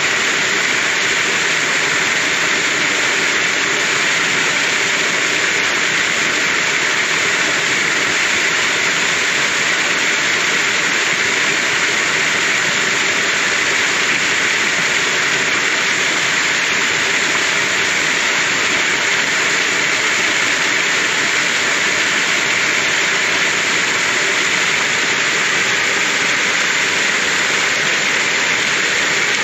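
Waterfall cascading over a rock face onto boulders: a loud, steady rush of falling and splashing water.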